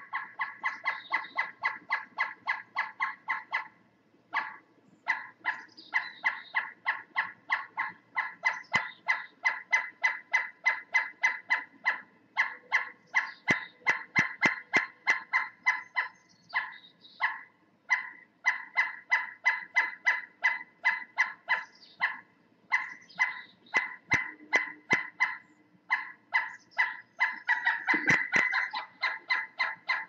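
An animal calling in a long series of short, nasal, honk-like notes, about four a second, with a few brief pauses.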